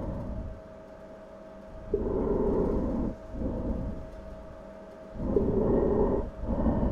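Slow, even breathing heard underwater, repeating about every three and a half seconds: an inhale that starts suddenly and lasts about a second, then a shorter, noisier exhale, over a faint steady hum.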